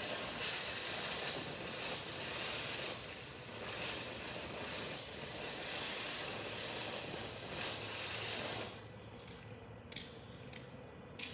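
Ground firework fountain spraying sparks with a dense, crackling hiss. It stops abruptly about nine seconds in, followed by a few faint isolated pops.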